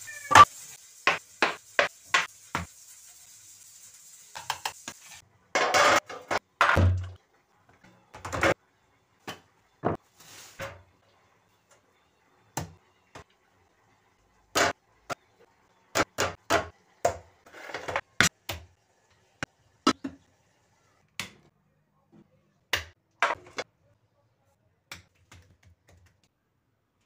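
Kitchen handling noises: a string of short, sharp knocks and clatters from a wooden chopping board, an aluminium saucepan and a large metal tray, with a few brief rustling scrapes. A faint hiss sits under the first five seconds.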